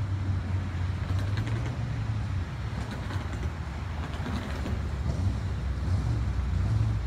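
Steady low outdoor rumble with faint, scattered clicks and creaks above it.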